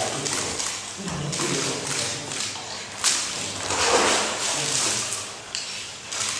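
A man's rough, wordless vocal sounds: low grunts and heavy breathing. About three seconds in comes a sudden sharp crack, followed by a long hissing rush of breath.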